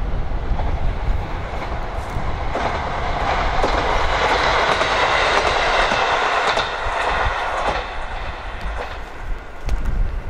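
A JR Hokkaido KiHa 40 diesel railcar passes close by. Its engine and wheel noise swells to a peak in the middle and fades away, with the wheels clicking over rail joints. Wind rumbles on the microphone throughout.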